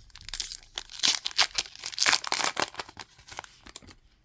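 Crinkling and tearing of a hockey sticker pack wrapper being ripped open by hand: a quick run of sharp rustles that stops just before the end.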